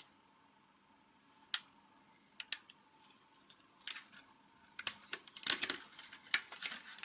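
A few sharp plastic clicks and taps as a DDR3 RAM module is handled, then from about five seconds in a dense crackly rustle as the module is unpacked from its packaging.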